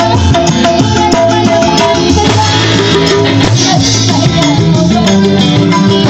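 Live dangdut band playing loudly: electric keyboard melody, bass guitar and drums, driven by a fast rattling hand-drum rhythm.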